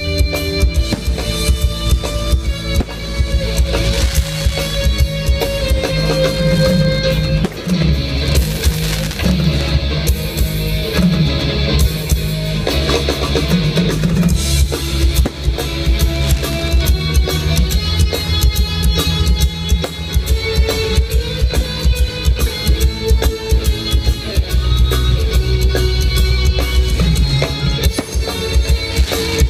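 Band music with a steady drum beat and a strong bass line.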